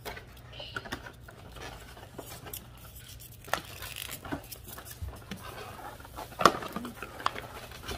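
A cardboard box being opened and handled by hand: scattered rustling, scraping and light taps, with one sharp knock about six and a half seconds in.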